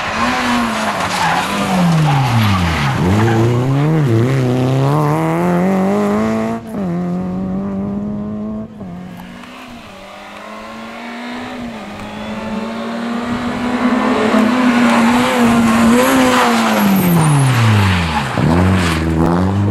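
Renault Clio RS Ragnotti rally car's two-litre four-cylinder engine revving hard on a tarmac stage, its pitch climbing in steps through the gear changes and dropping sharply under braking and downshifts. The tyres skid through a corner near the end.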